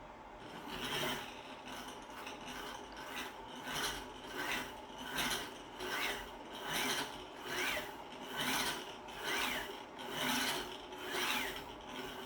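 Single-axis CNC gantry linear actuator traversing on its rack and pinion and linear guide rail in short repeated moves, about a dozen of them. In each move a motor whine rises and falls in pitch over a rasp from the gear teeth.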